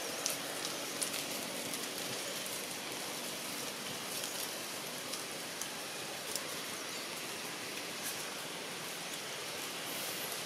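Steady outdoor background hiss, even and noise-like, with a few faint ticks and clicks scattered through it.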